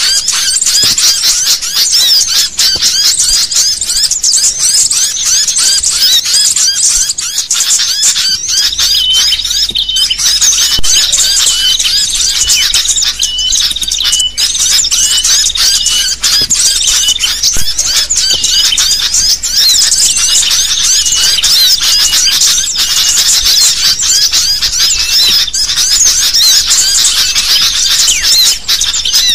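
A dense, noisy chorus of sooty-headed bulbuls (kutilang) calling excitedly, many high squeaky chirps overlapping without a break, with a run of evenly repeated notes in the middle. It is the agitated 'ribut' calling played as a lure to draw bulbuls in for trapping.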